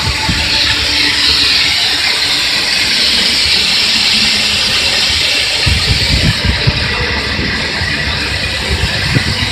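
Wormald fire suppression system discharging water through its spray nozzles across a Cat 16H grader's engine bay during a water-only test: a steady spraying hiss. Irregular low buffeting joins it from about six seconds in.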